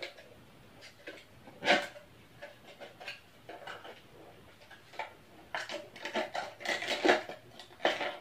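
Packaging of an instant noodle cup being handled: the lid peeled back and a foil seasoning sachet pulled out, crinkling and rustling in irregular bursts. The loudest crinkle comes about a second and a half in, and a busy run of crinkles follows from about five and a half seconds on.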